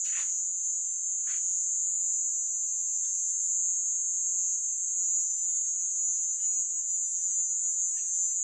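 Steady, unbroken high-pitched chorus of crickets at night, with a few faint brief rustles or taps.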